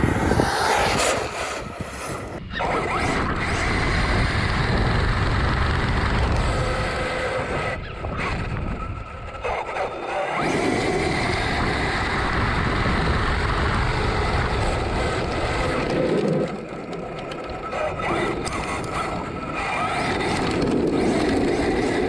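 Arrma Kraton 8S electric RC monster truggy running on test passes: brushless motor and drivetrain whine with tyre noise, rising and falling in loudness several times as the truck speeds up, slows and turns.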